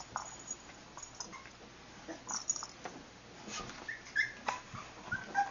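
Small dogs playing with a hanging ball toy: scuffling and rustling, with a few short, high whimpers in the second half.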